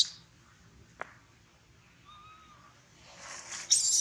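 Baby macaque screaming in distress: a loud, high, harsh shriek that starts near the end. Before it comes a quiet stretch with a single faint snap about a second in.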